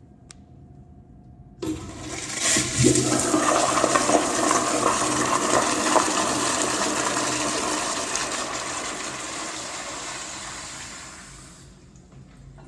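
Tankless flush-valve toilet flushing. A sudden loud rush of water starts a couple of seconds in and holds for several seconds, then tapers off and ends near the end.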